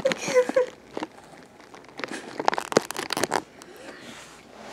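Rustling and crackling handling noise from a hand moving right against the camera and its microphone, in two clusters of dense crackles: one at the start and one about two to three and a half seconds in.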